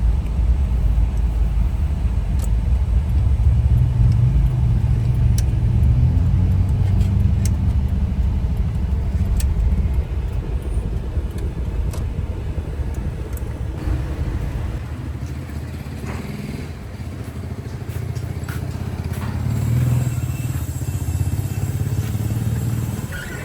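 A motor vehicle running on the road: a steady low engine-and-road rumble, louder in the first half, easing off and swelling again about twenty seconds in, with a few faint clicks.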